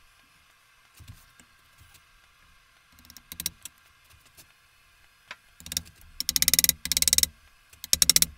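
Hand ratchet clicking in short rapid bursts as a fastener on a metal lathe headstock is turned. The bursts start about three seconds in and come louder and closer together in the second half.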